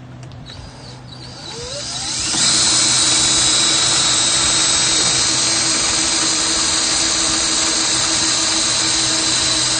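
Cordless drill spinning up with a rising whine about a second in, then running steadily at full speed as it drills a mounting hole.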